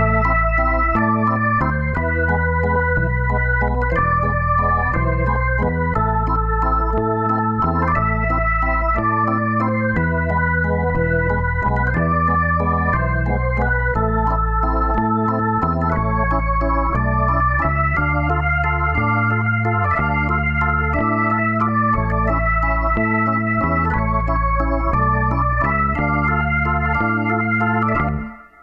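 Background music: held keyboard chords over a bass line whose notes change about once a second, at a steady level, dropping away at the very end.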